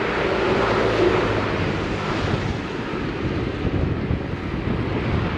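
Wind rushing over a bicycle-mounted camera's microphone while riding, with road traffic running alongside.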